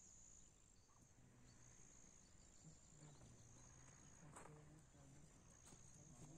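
Near silence with a faint, steady high-pitched insect trill, broken by short gaps, and a few small clicks; a faint low hum comes in about halfway.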